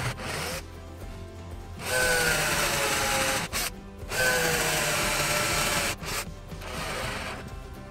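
Drill-driver boring a pilot hole into a pine block, run in two bursts of about a second and a half each. Its motor whine drops slightly in pitch as the bit bites into the wood.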